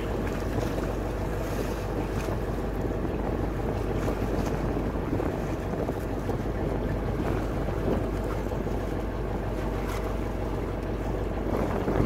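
Steady drone of an outrigger fishing boat's engine, with wind buffeting the microphone.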